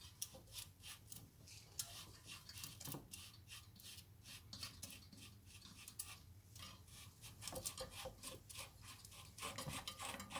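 Atom 77 Compact freewheel being unscrewed off the hub by hand, with faint metallic scraping and many small clicks throughout.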